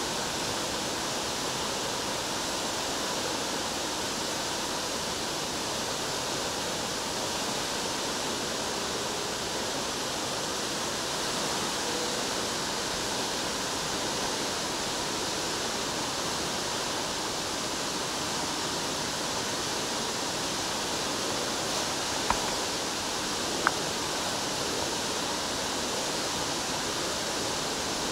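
Fell Beck's waterfall plunging down the main shaft into the cave chamber: a steady rushing hiss of falling water. Two brief clicks, about a second and a half apart, come near the end.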